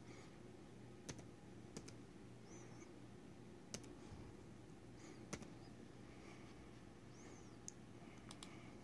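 Faint, occasional computer keyboard clicks, a single key press every second or two over quiet room tone, with three faint high chirps in between.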